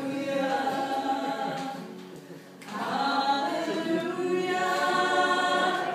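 Live singing with acoustic guitar accompaniment: two sung phrases of held notes, with a short break between them about two seconds in.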